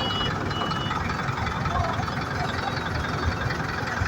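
A motor vehicle's engine running steadily amid road traffic noise.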